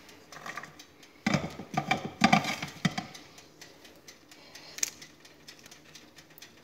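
Pomegranate seeds tipped from a cup into the plastic feed chute of a centrifugal juicer and the pusher set in, a clattering rattle of knocks for a couple of seconds, then the machine sits quiet, not running, with one sharp click near the end.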